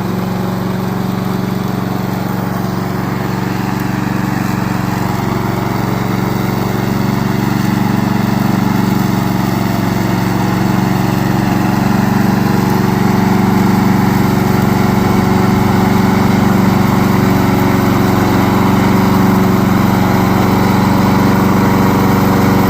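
Gasoline engine of a remote-control lawn mower running steadily, gradually getting louder.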